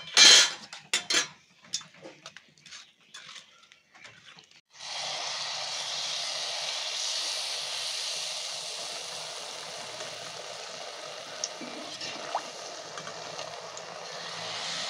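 A few sharp clicks and knocks. Then, about five seconds in, a steady sizzle of jalebi batter deep-frying in a kadai of very hot oil as it is squeezed through a perforated skimmer.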